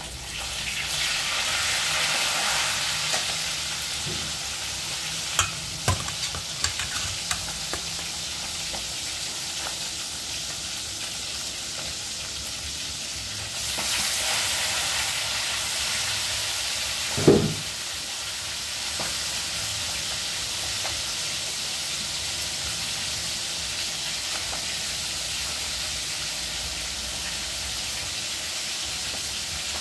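Food sizzling in hot oil in a pan on a gas burner while a spatula stirs it, with a few sharp clicks of the spatula on the pan several seconds in. The sizzle swells near the start and again around the middle, and one brief louder sound stands out a little past halfway.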